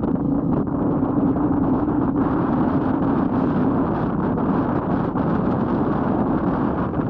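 Royal Enfield Meteor 350's single-cylinder engine running at a steady cruise, its note dipping slightly a few seconds in, with wind buffeting the microphone.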